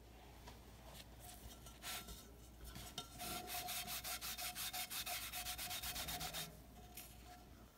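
A hand with a wet paper towel rubbing the outside bottom of a Calphalon pot as the exterior coating wipes off. There are a few separate strokes at first, then about three seconds of fast, even back-and-forth scrubbing, roughly nine strokes a second, which stops suddenly.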